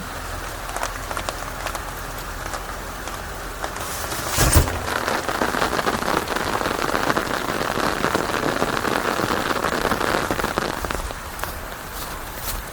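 Steady rain falling, with a single sharp crack about four and a half seconds in. The rain then grows heavier for several seconds before easing again near the end.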